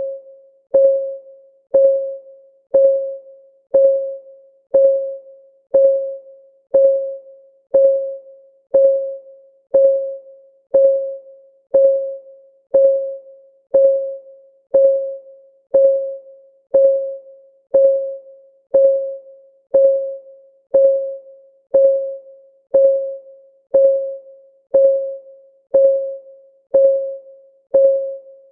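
Countdown timer's clock-ticking sound: a steady tick once a second, each a short click with a brief ringing tone that dies away quickly.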